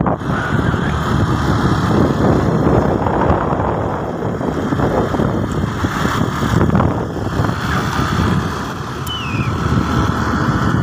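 Wind buffeting the microphone over the engine and road noise of a moving vehicle, loud and unsteady.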